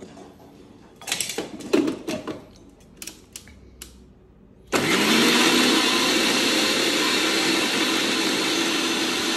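Clicks and knocks of a steel mixer-grinder jar being set onto its base, then about five seconds in the electric mixer grinder switches on, winding up briefly and running loud and steady as it grinds a wet masala paste of ginger, garlic, shallots and chilli.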